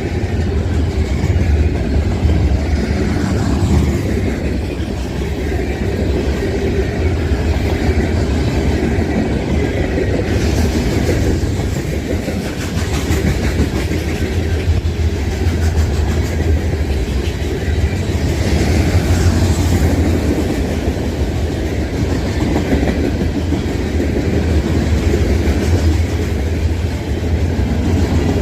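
Union Pacific train rolling past: a steady low rumble with the clatter of wheels over the rails.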